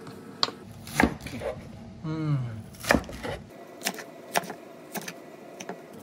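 Kitchen knife chopping scallions into long lengths on a wooden cutting board: sharp, unevenly spaced knocks of the blade against the board, several seconds apart at times and closer together at others.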